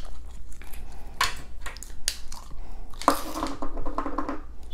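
Clear green slime being pulled from its container and squeezed by hand, making short wet crackles and pops, then a longer crackly squelch from about three seconds in.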